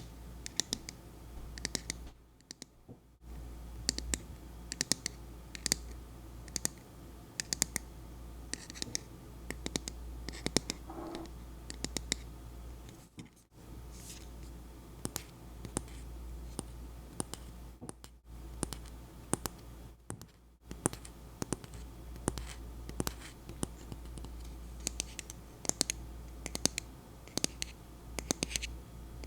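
Fingernails tapping and scratching on the matte-finish bottle of a Naturium salicylic acid body spray: irregular sharp taps, several a second, with a few brief pauses.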